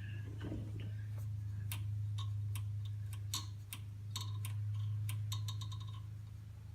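Small sharp metal clicks and ticks from hand tools and mower parts being handled, with a quick run of rapid clicks past the middle, over a steady low electrical hum.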